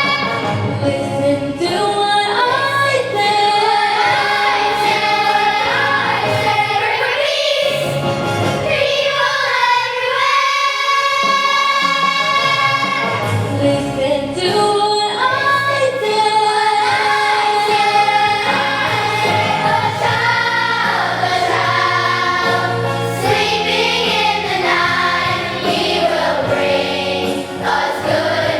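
Student choir singing a holiday song in sustained, held notes over low accompaniment.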